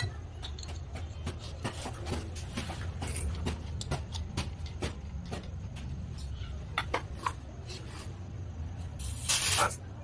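Refrigerant can and hose fittings clicking and tapping as the can is fitted to a can-tap valve on a gauge manifold, over a low steady hum. Near the end comes one short, loud hiss of R600a refrigerant gas escaping from the fittings, as when the charging hose is purged before gassing a refrigerator.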